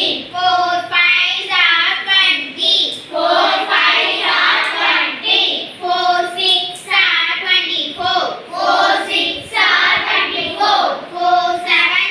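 Young schoolchildren chanting a multiplication table aloud together in Tamil, in a repeating sing-song rhythm of short phrases.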